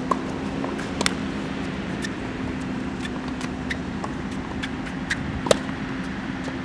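Tennis racket striking the ball on a serve, a sharp crack about five and a half seconds in, with a fainter hit about a second in. Under it runs steady outdoor background noise with a low hum.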